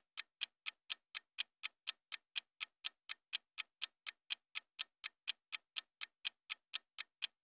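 Countdown-timer ticking sound effect: steady clock-like ticks at about four a second, stopping just before the end.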